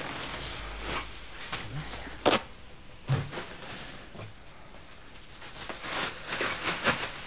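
Scattered rustles and knocks of clutter being handled, with one sharp click about two seconds in and a run of rustling near the end.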